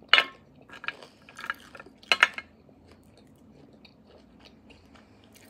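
Close-up wet mouth sounds of eating roasted beef bone marrow: four short, loud smacks in the first two and a half seconds, then quieter chewing with small clicks.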